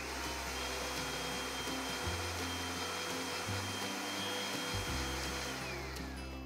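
Countertop blender running steadily, churning a thick coconut and coriander chutney. Near the end its whine slides down in pitch as the motor slows.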